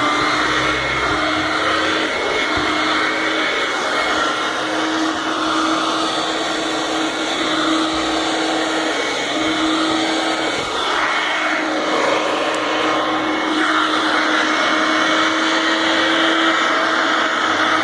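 Hoover Help Mate canister vacuum running steadily, its motor holding a steady hum and high whine while the suction noise swells and fades as the nozzle is worked over carpeted stairs.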